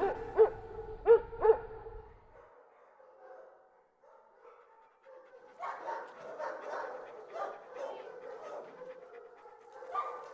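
A dog whimpering in three short rising-and-falling yelps, then, after a pause of a few seconds, a quick run of short whines and barks.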